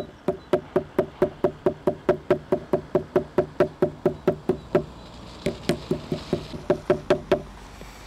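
A flat stone striking dry plant stems on a wooden table, crushing them to loosen the fibres. It makes a quick, even run of knocks at about five a second, then a short pause about five seconds in, then another run of somewhat softer knocks.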